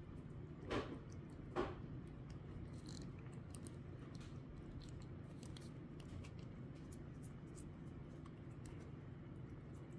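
Cat licking a creamy lickable treat from a squeezed tube: a run of small, quick tongue clicks. Two louder brief noises come about a second in.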